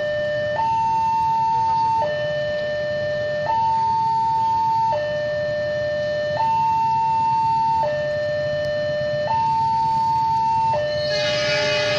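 Railway level-crossing warning alarm sounding a steady two-tone signal, a high tone and a lower tone taking turns about every one and a half seconds, as a train approaches. A hiss joins in near the end.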